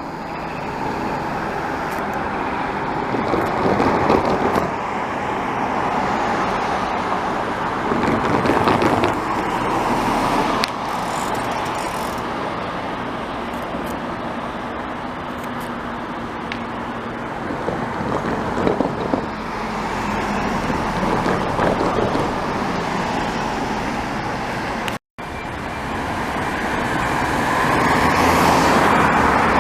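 Steady road traffic noise from a busy highway, with passing vehicles swelling and fading. It cuts to silence for a moment about five seconds before the end, then resumes.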